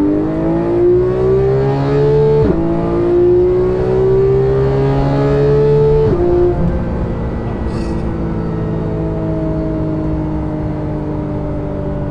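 2015 Porsche 911 GT3 (991.1), naturally aspirated 3.8-litre flat-six with a GMG aftermarket exhaust, accelerating hard. The engine note climbs, drops sharply at two quick PDK upshifts about two and a half and six seconds in, then settles into a steady, slowly falling drone.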